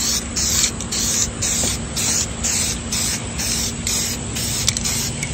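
Aerosol can spraying semi-gloss clear finish onto a wooden radio cabinet in short hissing bursts, about two a second.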